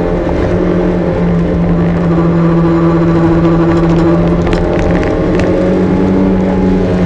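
Porsche 924's four-cylinder engine pulling steadily under load, heard from inside the cabin, its pitch holding for a few seconds at a time and shifting slightly as the throttle changes through the bends. A few faint clicks near the middle.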